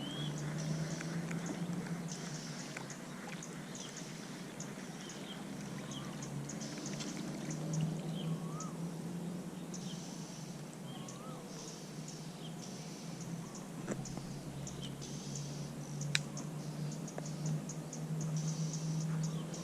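Outdoor nature ambience: scattered bird chirps and short whistled calls with rapid insect-like clicking, over a steady low hum.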